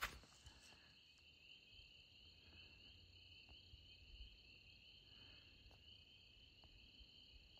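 Faint, steady insect chorus: a continuous high trill in two pitches, with a few soft ticks now and then.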